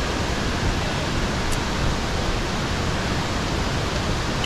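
A steady rush of flowing water, like a stream or waterfall, loud and even throughout.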